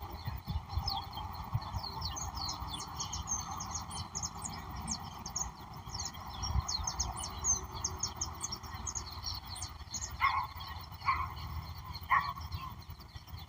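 Birds chirping in a dense run of short, high, quickly falling chirps over a low rumble. In the last few seconds there are four separate, louder and lower calls about a second apart.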